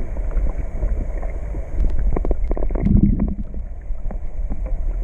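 Wind rumbling on the microphone on an open lake, with a cluster of short knocks and clicks about two to three seconds in.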